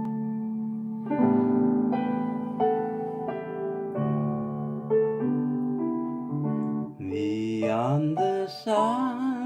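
Electronic keyboard playing a slow hymn introduction in sustained chords that change about once a second. About seven seconds in, a man's voice comes in, sliding up and singing with vibrato over the keyboard.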